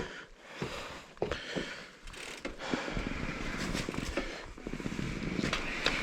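Mountain bike ridden over snow: scattered knocks and clicks from the bike, then, from about three seconds in, a steady low rumble of tyres and wind on the microphone.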